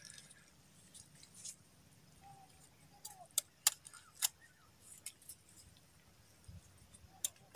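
Faint outdoor background with a handful of short, sharp clicks and knocks, most of them bunched about three to four seconds in and one more near the end.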